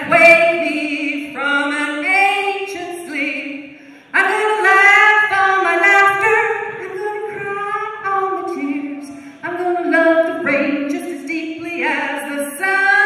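Unaccompanied call-and-response singing of a paddling chant: a woman sings a short line and a group of voices sings it back. The group comes in loudly about four seconds in.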